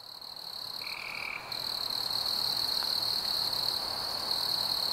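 Nature ambience of a steady, high-pitched trilling chorus, growing louder about a second and a half in, with a short separate note about a second in.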